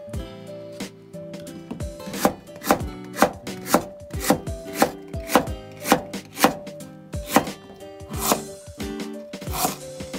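Kitchen knife slicing raw lotus root into thin quarter-rounds on a wooden cutting board, each cut ending in a crisp knock of the blade on the board, about two a second.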